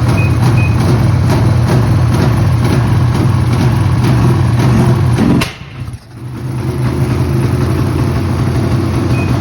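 Ski-Doo Summit snowmobile's two-stroke engine running steadily. About five and a half seconds in it suddenly cuts out with a sharp click, nearly dies for about a second, then picks back up and runs on: the misfire the owner is asking about.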